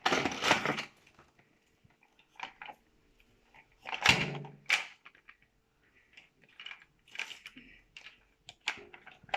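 Toy packaging being opened by hand: scattered rustles, clicks and knocks of cardboard and plastic, with a louder clunk about four seconds in.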